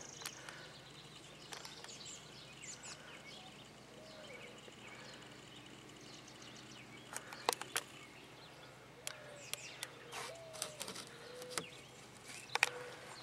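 Quiet background noise with a few scattered light clicks and knocks, and several faint short chirp-like tones.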